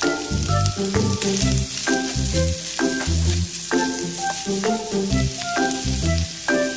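Carrot, green-bean and ham strips sizzling in a hot nonstick wok as they are stir-fried with a spatula. Background music with a steady bass beat plays throughout.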